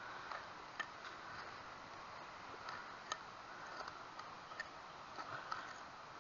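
A serrated hand digger stabbing and cutting into soil and turf, giving irregular sharp clicks and scrapes over a steady faint hiss.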